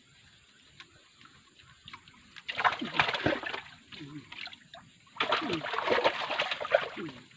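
A large hooked lembat catfish splashing and thrashing in the water as it is hauled out of the hole: a short burst of splashing about two and a half seconds in, and a longer one about five seconds in.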